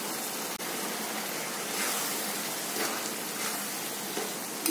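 Onion, garlic and chilli paste frying in oil in a steel kadai: a steady sizzling hiss, with a few brief scrapes of the spatula against the pan.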